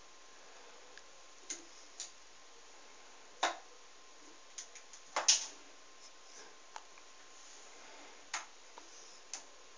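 A kitten's paws knocking and scrabbling on a small wooden table and the wall as it leaps at a laser dot. Scattered taps and knocks, the loudest about three and a half and just over five seconds in.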